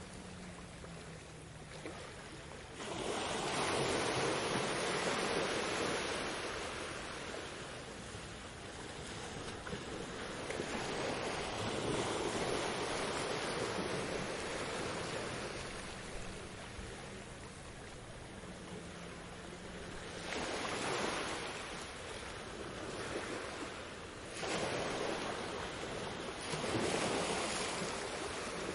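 Sea waves breaking and washing onto a beach: a steady rushing that swells and ebbs. A big surge builds about three seconds in, with further surges later on.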